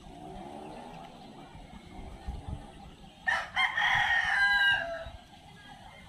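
A rooster crowing once, a loud cock-a-doodle-doo about three seconds in that holds its pitch and then drops at the end.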